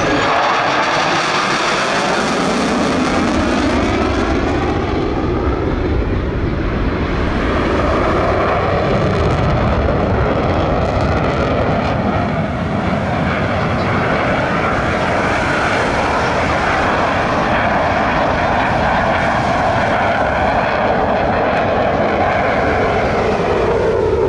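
Airplane engine noise from an aircraft in flight, loud and steady, with slow sweeps in tone.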